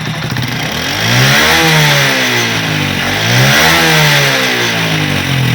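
Motorcycle engine revved twice, rising and falling in pitch each time. Under the revs there is a buzzing rattle: the rear brake pedal touches the exhaust silencer, and the silencer vibrates against it.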